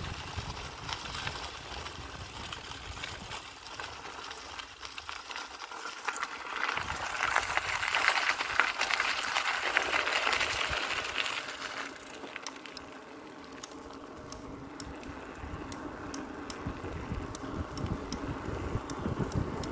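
Bicycle riding along a lane: steady rush of tyres and wind, louder and hissier for about five seconds in the middle, then quieter with scattered light clicks and rattles.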